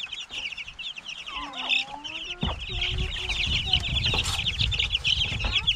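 A brood of young chicks peeping constantly, many high, short, overlapping calls. A low rumbling noise joins them from about halfway through.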